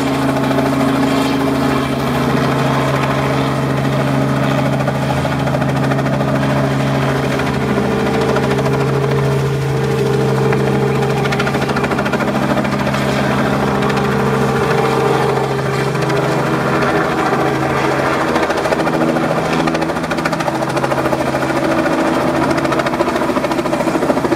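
Robinson R44 helicopter flying low as it comes in to land: a steady drone from its six-cylinder Lycoming piston engine and two-bladed rotor. The pitch of its tones shifts a little past the middle.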